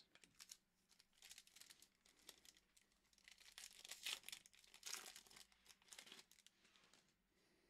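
Faint crinkling and tearing of a foil trading-card pack wrapper from a Prizm basketball hobby pack, torn open by hand. Irregular quick crackles, strongest about halfway through, die away near the end.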